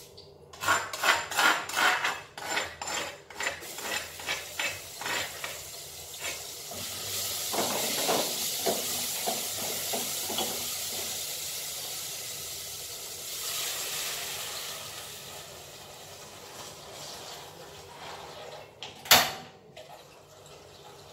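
A spatula clatters and scrapes against a cooking pot as ground spice paste is stir-fried, then a loud sizzle swells about seven seconds in and fades away over several seconds. One sharp knock, the loudest sound, comes near the end.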